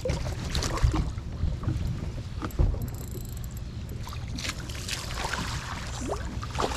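Wind rumbling on the microphone aboard a small fishing boat, with a few short knocks.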